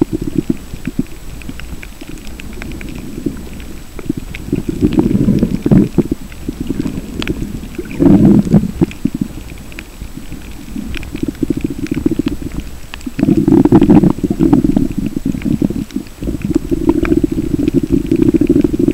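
Muffled underwater sound picked up by a camera held below the surface: low rumbling water movement that swells in surges every few seconds, with scattered sharp clicks throughout.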